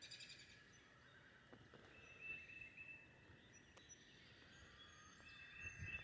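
Faint morning birdsong: several birds calling, with quick chirps near the start and short held whistled notes recurring every few seconds over a steady faint background chorus.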